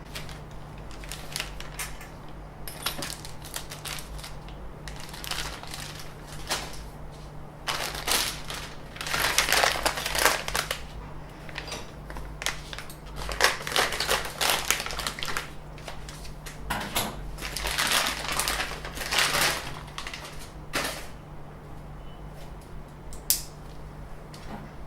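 Hands handling 3D-printer parts and packaging: irregular rustling, crinkling and clicking, busiest in the middle, with a sharp click near the end. A steady low hum runs underneath.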